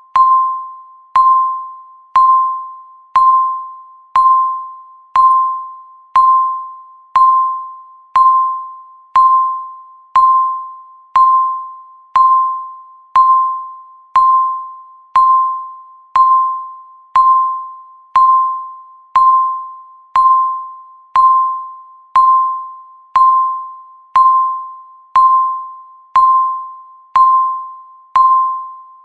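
Countdown timer's electronic tick sounding once every second: each tick is a sharp click carrying a single clear ringing tone that fades away before the next.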